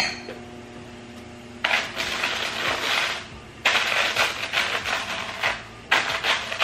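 Rim of an upturned coupe glass being twisted and ground into granulated sugar on a paper plate to coat it, three bouts of gritty scraping, each a second or two long, starting a little under two seconds in.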